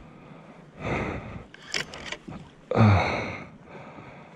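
A man breathing hard in heavy exhales while fighting a fish on a spinning rod, three breaths about a second apart. The loudest, about three seconds in, ends in a low grunt. A few brief ticks come just before the middle.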